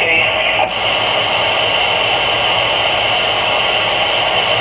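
CB radio receiver on AM hissing with steady static through its speaker; a transmission cuts off under a second in, leaving an even, loud hiss.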